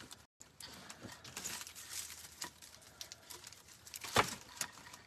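Dry grapevine wreath branches crackling and rustling as they are handled, with a sharper knock about four seconds in, the loudest sound.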